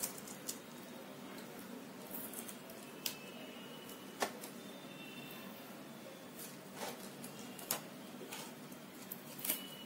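Clear plastic stencil being peeled off freshly painted paper and set down: faint handling noise with a handful of sharp little clicks and taps spread through.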